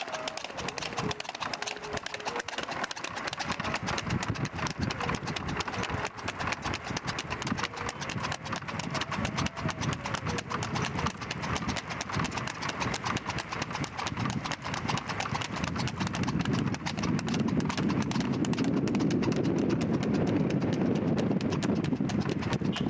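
A racing horse's hooves clip-clopping rapidly on a paved road as it pulls a two-wheeled tanga cart. A low rumble grows louder in the second half.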